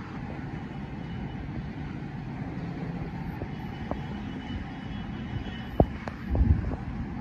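Steady low rumble of city traffic heard from high above the street, with a few light clicks and a short low thump near the end.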